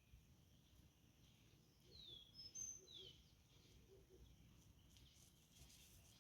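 Near silence outdoors, broken by a few faint bird chirps, short falling notes, about two to three seconds in.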